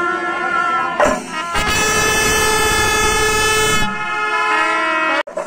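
Festival wind instruments holding long, steady horn-like notes. A loud, noisy clash rises over them from about a second in to about four seconds in. The music breaks off abruptly near the end.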